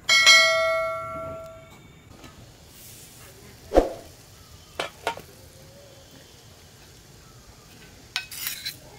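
A single bright, bell-like ding right at the start, ringing out over about a second and a half. A sharp knock follows, then a few scattered clicks, over a faint steady background.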